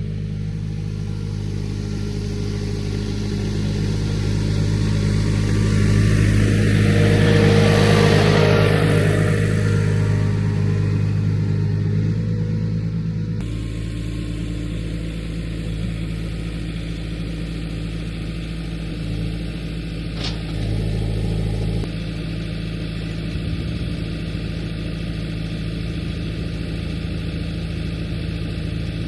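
John Deere 4044M compact diesel tractor engine running steadily, growing louder for a few seconds mid-way and then settling back.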